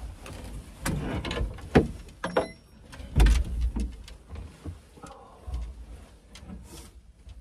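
Knocks, clicks and bumps of a man moving about inside a wooden hunting blind and pushing through its door, with the heaviest bump about three seconds in.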